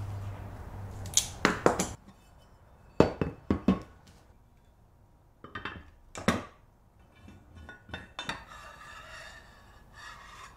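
Aluminium jig parts and tools clinking and knocking against each other and the wooden workbench as they are handled and fitted, in several short clusters of sharp metallic clicks. A low hum stops abruptly about two seconds in.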